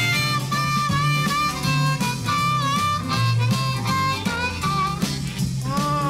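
Background music, an instrumental break with a harmonica playing held and bending notes over a bass line and a steady beat.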